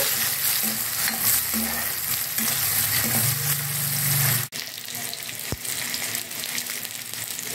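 Chopped onions and garlic with whole spices frying in hot oil in a steel kadhai, sizzling steadily as a steel ladle stirs them, being fried until golden. About halfway through the sizzle suddenly drops quieter.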